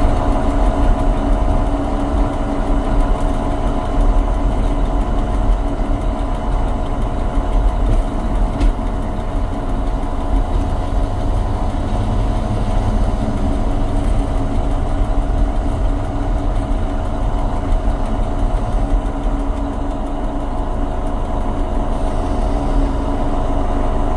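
Homemade ride-on garden-railway locomotive running steadily along its track, heard from inside its cab: a constant drive drone with a low rumble.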